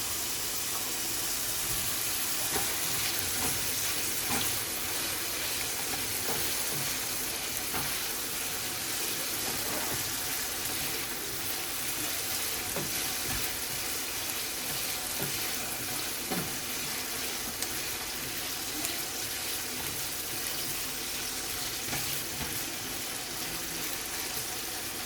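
Mini potatoes frying in a pan of hot oil: a steady sizzle with scattered small crackles.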